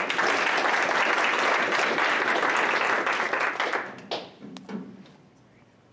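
A small audience applauding, dying away about four seconds in.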